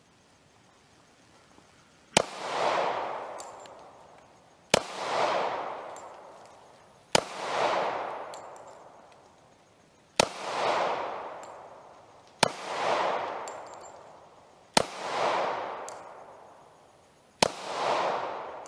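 Glock 22 pistol in .40 S&W fired in slow, deliberate single shots: seven shots about two and a half seconds apart, the first about two seconds in, each followed by a long echo that dies away.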